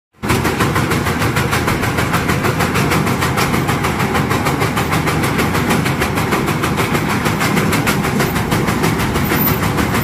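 Chaff cutter running while green fodder stalks are fed into it, its blades chopping them with a rapid, even rhythm of many strokes a second. It starts abruptly just after the start.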